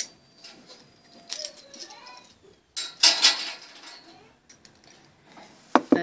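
Key turning in a 40 mm brass padlock to unlock it: metallic clicks and rattling of key and lock, with the loudest clatter about three seconds in.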